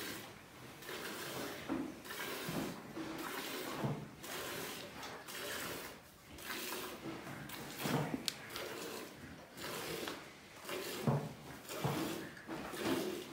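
Milk squirting into a pail as a cow is milked by hand: a steady series of hissing spurts, about one a second.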